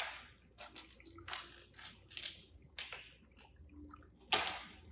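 Car emblem on a wire plating hook dunked and swished in a plastic beaker of rinse water after gold plating: a series of short splashes and sloshes, the loudest near the end.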